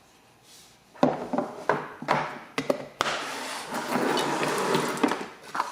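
Hands handling and reassembling a gas lighter: a string of sharp clicks and knocks about a second in, then a couple of seconds of continuous rubbing and rustling.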